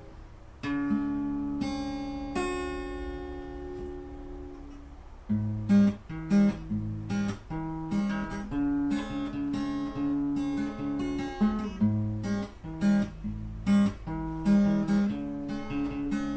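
Background music on acoustic guitar: a few long ringing notes, then a quicker run of plucked notes from about five seconds in.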